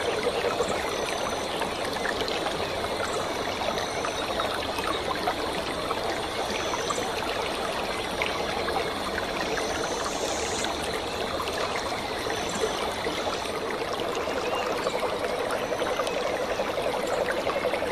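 Steady rush of a waterfall and the rocky stream below it, with water trickling and splashing close by. A few short, high chirps come and go.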